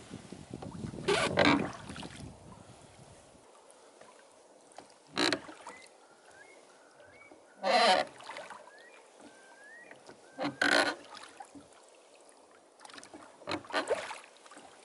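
Oars of a small rowing boat stroking through choppy water, a short splashing surge about every three seconds. Between strokes there are faint, short rising and falling bird whistles.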